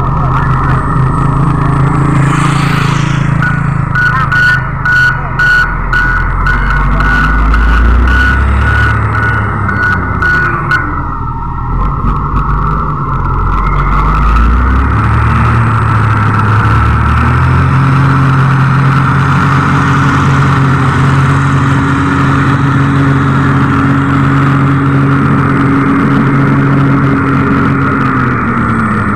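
Diesel engine of a Komatsu GD555 motor grader running under load, its pitch rising and falling during the first half, then holding steady at higher revs. Its reversing alarm beeps about twice a second for several seconds near the start.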